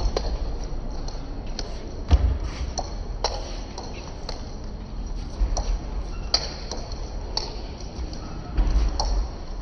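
Table tennis rally: the ball clicks sharply off the bats and the table, a hit about every half second to a second. A couple of low thumps come in about two seconds in and near the end.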